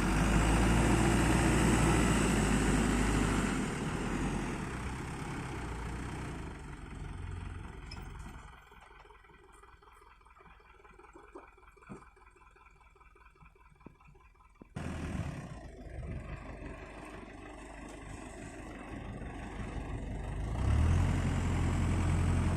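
Diesel engine of a fully loaded Hino 300 dump truck running, loud at first and then fading away to a quiet stretch with a few faint clicks. The engine sound returns abruptly past the middle and builds louder again near the end.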